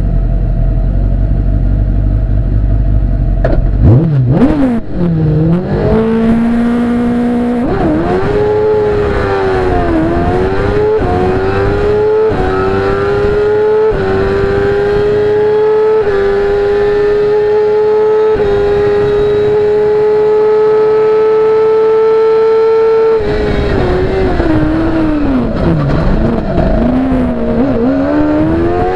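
Engine of a BRC CM05 Evo sports prototype heard from the cockpit during a hillclimb run. It holds steady revs at the start, launches about four seconds in, and climbs through a string of quick upshifts, each rising sweep cut off by a shift. It then holds near-steady high revs flat out before dropping sharply as the car brakes and downshifts for a bend, then picks up again.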